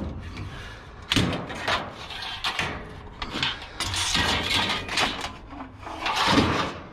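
Scrap being handled and loaded: an irregular string of knocks, clatters and scrapes, with the loudest bang near the end.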